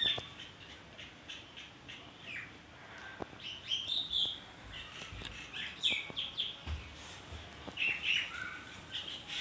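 Small birds chirping: short high chirps and quick sweeps in pitch, scattered through with short gaps.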